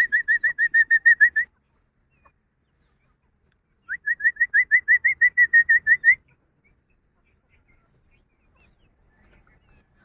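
A bird singing two rapid trills of short, rising whistled notes, about eight a second. The first trill stops about a second and a half in, and the second runs from about four to six seconds in.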